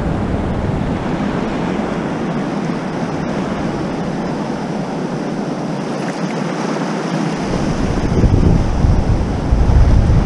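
Sea surf washing and breaking over a rocky shoreline, with wind on the microphone. The low wind rumble turns gustier and stronger about three-quarters of the way in.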